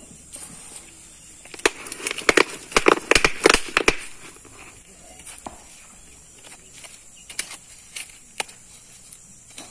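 A soil-filled plastic water can being tipped over and worked to free a plant's root ball. There is a cluster of scrapes and knocks from about two to four seconds in, then a few scattered clicks.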